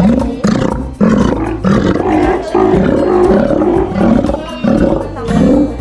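Steller sea lion roaring with its mouth open: a run of short, repeated roars, about seven or eight in a row, each rising and falling in pitch.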